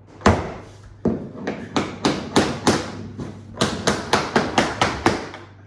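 A mallet tapping luxury vinyl planks to seat their click-lock joints: a string of about twenty sharp taps, coming faster in the second half.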